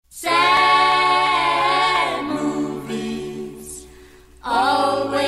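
Voices singing a cappella in held chords, as a soundtrack. They soften and fade after about two seconds, and a new full chord comes in near the end.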